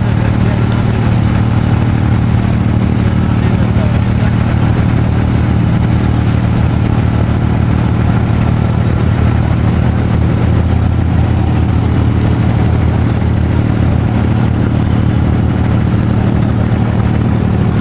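A wooden creek boat's engine running steadily under way, a constant low drone with no change in speed.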